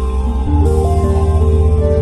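Background music: calm, new-age style with sustained notes over a steady low bass.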